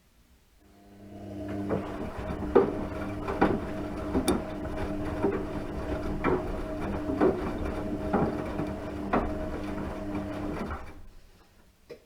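Washing machine running a cycle: the motor hum starts about a second in and runs steadily with a knock from the turning drum about once a second, then winds down and stops near the end, followed by two short clicks.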